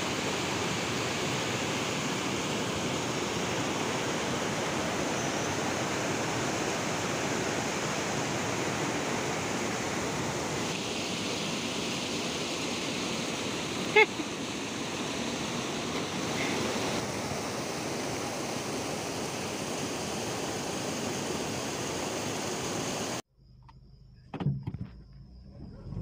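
Steady rush of falling water from a waterfall, an even hiss with no pitch, broken once by a brief click about halfway. The rush cuts off abruptly near the end.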